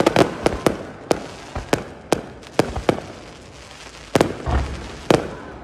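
Fireworks display: aerial shells bursting overhead in an irregular series of sharp bangs and crackles, densest in the first half-second, with heavier booms about four and five seconds in.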